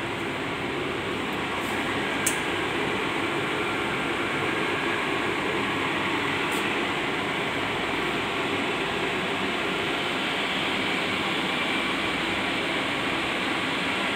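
Steady rushing hum of air conditioning and equipment cooling in a room of railway signalling relay racks, with one sharp click about two seconds in.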